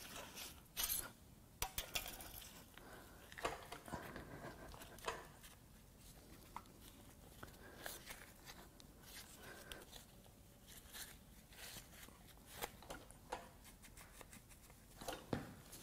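Faint, scattered clicks and scrapes of a steel dipstick tube being twisted back and forth as it is worked loose from an aluminium engine block. The tube turns but is slow to come out.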